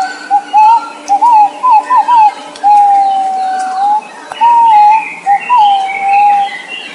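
A bird whistling a series of clear, loud notes at about one pitch: quick bent and wavering notes, one long held note about three seconds in, then more short bent notes. Fainter higher chirps sound behind it.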